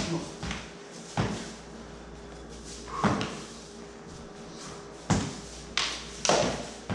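Sword-and-dagger fencing bout: about seven sharp, irregularly spaced clacks and knocks as steel training blades meet and feet land on the hard floor.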